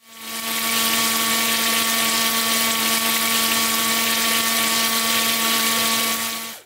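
Car windscreen washer pump running and spraying fluid through its nozzle: a small electric motor's steady hum over a strong hiss of spray. It builds up over about half a second and cuts off sharply near the end.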